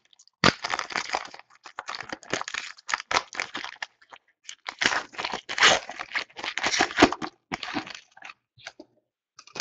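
Shiny wrapper of a baseball card pack being torn open and crinkled by hand: a run of irregular crackles and rips that dies away near the end.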